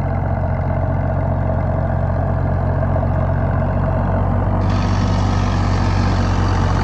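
Deutz-Fahr Agrolux 50 4WD tractor's diesel engine running steadily under load while it drives a rotavator through deep, flooded mud. A brighter hiss joins the engine sound about two-thirds of the way in.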